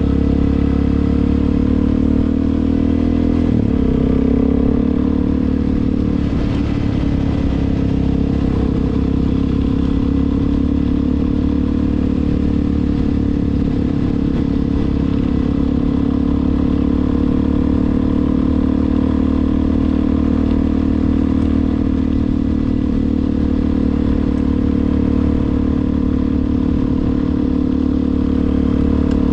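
Suzuki DR-Z400's single-cylinder four-stroke engine running under way at a steady pace. Its note climbs, drops about three and a half seconds in, then holds level.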